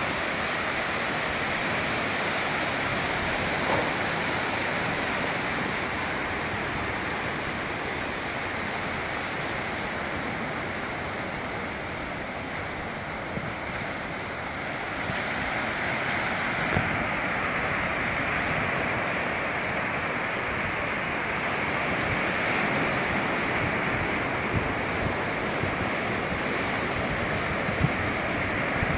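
Surf breaking and washing up a sandy beach: a steady wash of waves.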